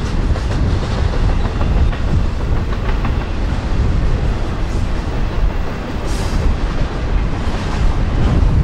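Freight train rolling past, its steel wheels clicking over rail joints above a heavy, steady low rumble.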